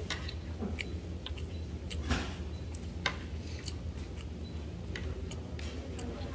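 Sparse light clicks and taps from eating at a table, utensils on dishes and mouth sounds, over a steady low hum; one click about two seconds in is a little louder.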